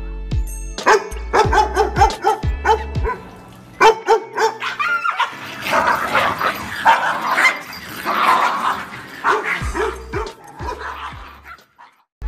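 Dogs barking over background music with a steady beat. For a few seconds in the middle the music's bass drops out and the barking is denser.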